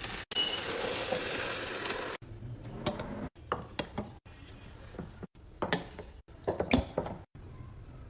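About two seconds of steady hissing noise, then, after an abrupt cut, a string of short clinks and knocks as containers are set down and handled, with hard glass-like and plastic contacts.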